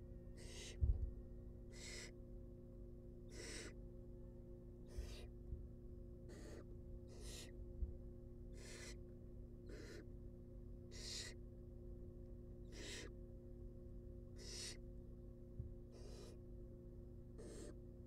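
Barn owl nestling's begging calls: a rasping hiss repeated about every second and a half while it is being fed. A steady low hum runs beneath, and there is a thump about a second in.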